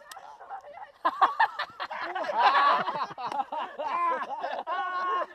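A group of people laughing and calling out over one another, starting about a second in.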